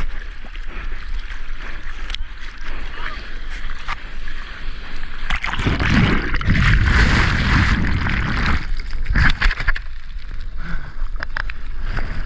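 Seawater splashing and sloshing around a surfer paddling out on a surfboard through the surf, with a low rumble of wind on the microphone. A louder rush of water comes through from about five and a half to eight and a half seconds in.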